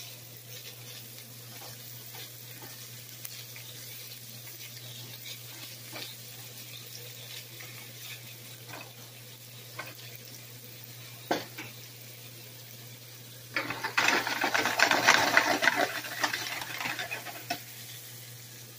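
Chopped salami, pepperoni and ham sizzling in a hot frying pan, with a few sharp clicks of a utensil against the pan. Near the end the sizzling swells into a louder rush for about three seconds.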